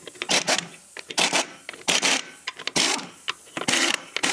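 Pneumatic impact wrench hammering on a tractor's wheel nuts, in five short bursts about a second apart, with lighter clicks between them.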